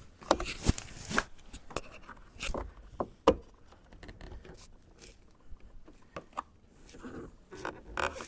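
Hands and tools working at a car's plastic interior door panel trim: a string of sharp plastic clicks, taps and scrapes, the loudest about three seconds in.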